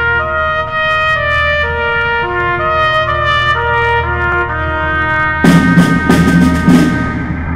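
Background music: a trumpet melody stepping from note to note over a steady bass, with a few loud crashes coming in about three-quarters of the way through.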